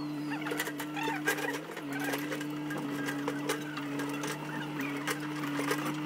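A backhoe's engine running steadily, its pitch dipping briefly about two seconds in, with scattered sharp clicks and knocks over it. Birds chirp at the same time.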